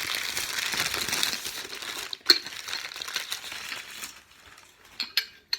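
Packing paper being crumpled and pulled away as a piece of china is unwrapped, a dense crackling for about four seconds with one sharp knock about two seconds in, then a few light clicks of china near the end.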